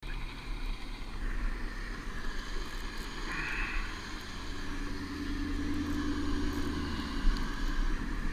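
Motorboat engine running as the boat crosses the river: a steady hum, strongest in the second half, that drops off about a second before the end.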